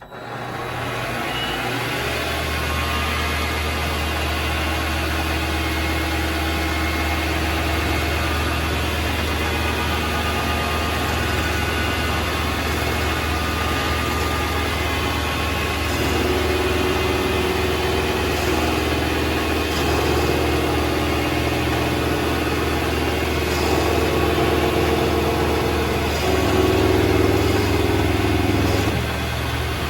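Vevor MX400 mini lathe starting up and running steadily as it faces the end of a screw. It comes up to speed over the first couple of seconds; in the second half a higher tone comes and goes in steps as the tool takes light cuts.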